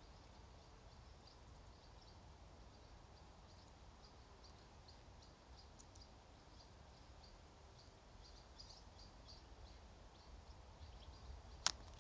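A ripe Himalayan balsam seed pod bursting under the fingers: one sharp snap near the end, over a faint background of soft high chirps repeating several times a second.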